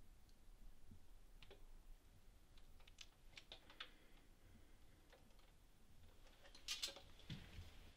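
Faint, scattered clicks of saxophone keys being pressed with no note played, with a brief denser clatter near the end.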